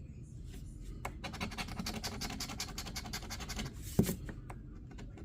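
Rapid scratching on a lottery crossword scratch-off ticket, a quick run of strokes for about two and a half seconds, then a single sharp knock about four seconds in.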